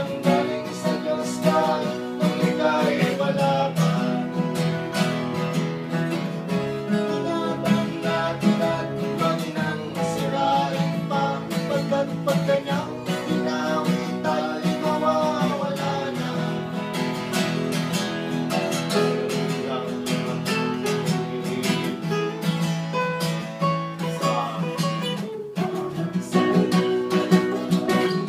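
Acoustic guitar strummed steadily as accompaniment to a folk song, with singing over it at times.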